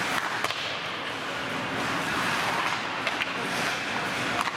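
Ice hockey play on the rink: skate blades scraping and carving across the ice, with a few short, sharp clacks of sticks and puck.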